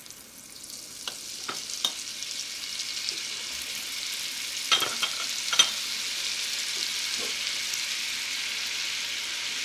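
Butter melting in hot bacon grease in a Dutch oven. It sizzles with a hiss that builds over the first few seconds and then holds steady, with scattered small pops and crackles and two louder pops about halfway through.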